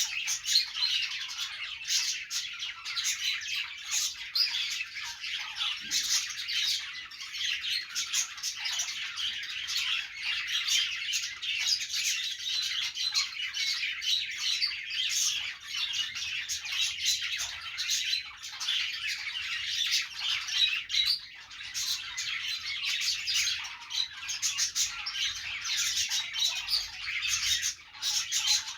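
A group of budgies (budgerigars) chirping, warbling and squawking without a break, many high quick calls overlapping.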